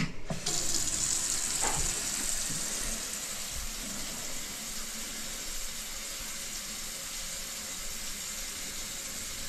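Water running in the bathroom plumbing with a steady hiss. It starts suddenly just after the beginning and eases a little over the first few seconds.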